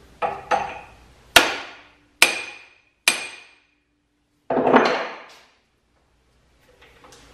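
Hammer tapping a drill chuck up onto the 33 JT taper of a drill press spindle to seat it: about five sharp metallic knocks with a brief ring, the third the loudest. Then one longer, rougher noise of about a second.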